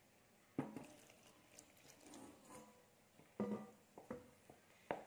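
Plastic spoon stirring flour and water into batter in a ceramic bowl, knocking against the bowl several times, each knock ringing briefly, with faint stirring noise between.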